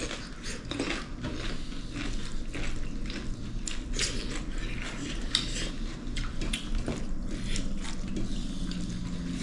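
Dishes and cutlery clinking and scraping as people eat, with many small scattered clicks and knocks throughout.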